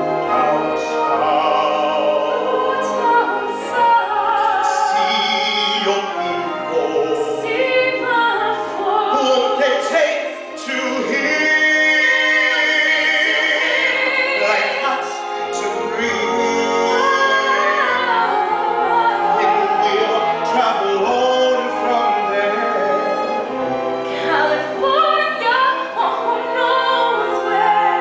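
Musical-theatre singing with orchestral accompaniment: a man and a woman sing a duet in held, vibrato-rich notes, heard from the audience of a school auditorium.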